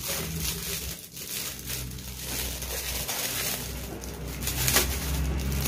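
Clear plastic wrapping crinkling and crackling as it is handled around a blue plastic dental tray with divider, with one sharper crackle near the end.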